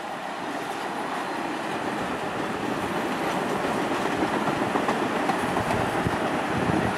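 R46 subway train passing at speed: a steady rumble of steel wheels on rail that grows louder as the cars go by, with clacks over the rail joints in the second half.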